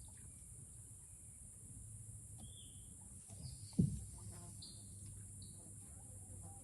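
Rainforest ambience: a steady high-pitched insect drone with short, scattered bird chirps. A single low thump comes about four seconds in.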